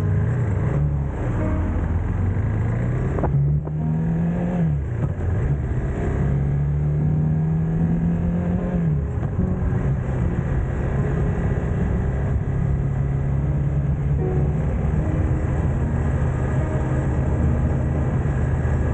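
Motorcycle engine running under way. Its pitch rises and drops a few times in the first half, with a brief dip about three seconds in, then holds steady.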